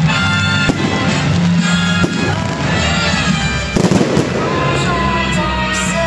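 Aerial fireworks shells bursting in sharp bangs, several close together about four seconds in, over loud show music.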